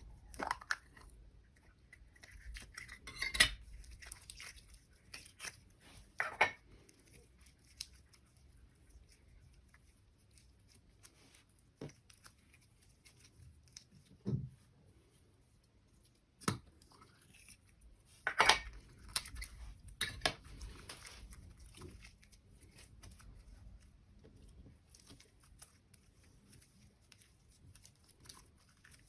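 Slime being mixed and squished by hand, heard as scattered sticky clicks, pops and crackles. A handful of sharper clicks stand out above the quieter squishing.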